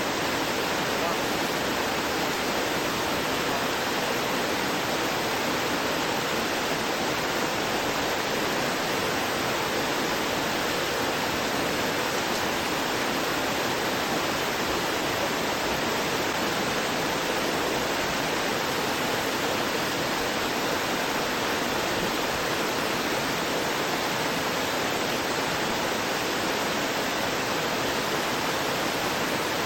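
Small stream gurgling and rushing over rocks in a steady, unbroken hiss of water.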